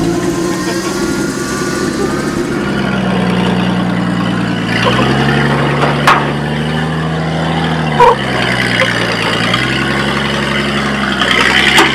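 Ford F-150 pickup's engine running under load as it crawls up steep rock, its pitch dropping and rising again with the throttle, with two sharp knocks about six and eight seconds in.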